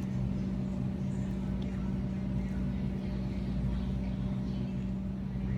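Steady low mechanical hum of a running machine, holding one pitch without change.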